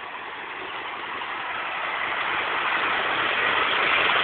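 Heavy vehicle engine running, a dense noisy drone that grows steadily louder.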